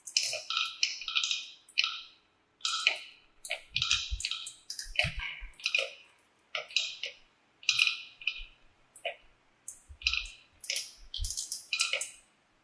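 Marbles clattering down a plastic wave-slope marble run: bunches of sharp clicks and clacks, one after another, some with a short ringing note.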